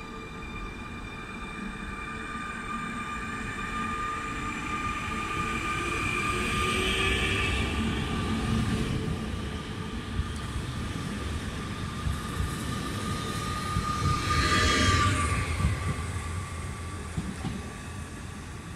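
Newag Impuls electric multiple unit pulling out of the station, its traction equipment whining steadily while a lower tone rises as it gathers speed. The wheels squeal briefly about fifteen seconds in, where the noise is loudest, then it eases off.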